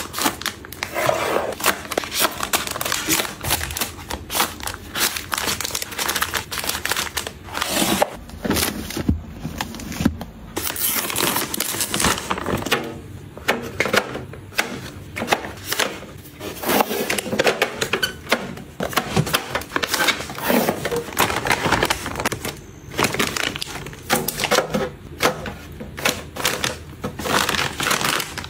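Plastic snack pouches and foil-wrapped packets rustling and crinkling as they are handled and set into plastic storage bins, with many small taps and clicks of packaging against the bin walls.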